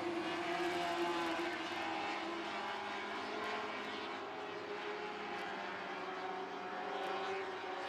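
Engines of small sprint race cars running at speed around a dirt oval, a steady drone whose pitch slowly shifts as the cars circle, easing slightly mid-way and swelling again near the end.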